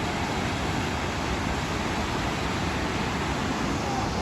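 Steady, even rushing noise with no rhythm or tone, holding one level throughout.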